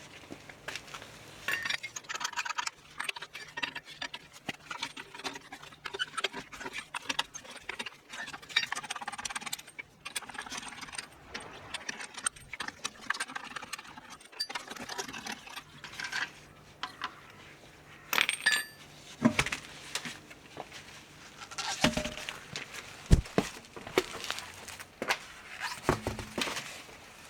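Scattered metallic clinks, clicks and knocks of tools and parts being handled, with a few louder knocks about 18, 22 and 23 seconds in.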